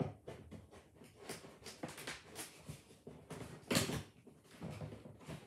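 Hands working at a large cardboard box to open it: scattered taps, scrapes and rustles of the cardboard, with one louder knock just before four seconds in.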